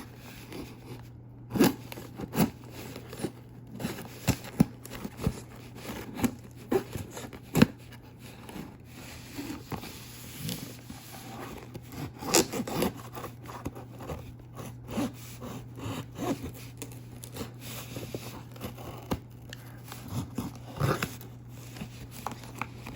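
A butter knife scraping, sawing and tearing at the tape and packaging of a parcel, in irregular short scrapes and clicks, over a steady low hum.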